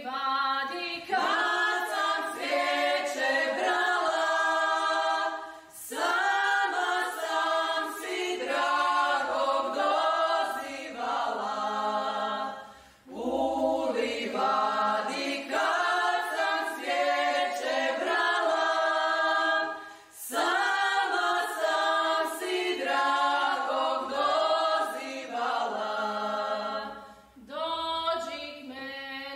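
Unaccompanied group of voices singing together in several parts, in phrases of about seven seconds with short breaks between them.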